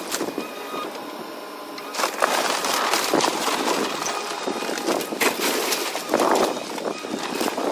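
Cat excavator demolishing a wood-frame house: timber splintering and debris clattering in a dense run of cracks and knocks from about two seconds in, after a quieter start.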